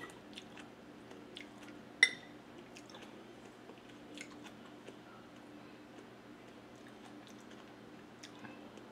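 Close, quiet chewing of a mouthful of salmon soup, with small wet mouth clicks. About two seconds in comes a single sharp, ringing clink of a metal spoon against the glass bowl, the loudest sound here.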